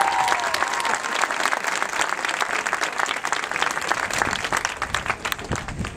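Crowd of spectators applauding, a dense patter of clapping that thins out near the end.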